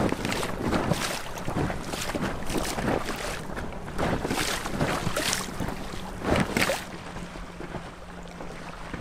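Wind buffeting the microphone and water slapping and splashing against the hull of an inflatable boat crossing choppy lake water, in irregular surges over a faint low steady hum. It grows quieter about seven seconds in, as the boat reaches the calm water in the lee of the shore.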